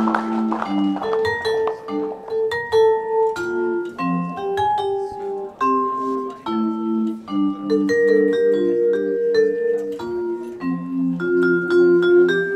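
Vibraphone played with four mallets: a quick melody of struck notes over lower ringing two-note chords.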